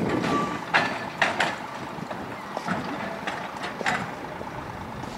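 Narrow-gauge electric tramcar rolling slowly past, its low rumble fading away at the start, followed by irregular clicks and knocks of the wheels over rail joints and pointwork.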